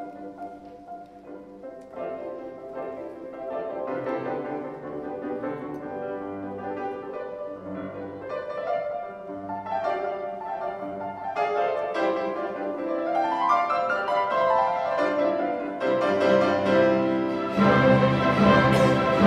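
Orchestral background music with piano, growing louder towards the end.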